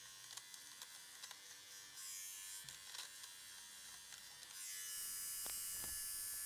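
Handheld electric fabric shaver running faintly as it is passed over cotton canvas, a steady high whir with small scattered ticks. It grows a little louder about four and a half seconds in.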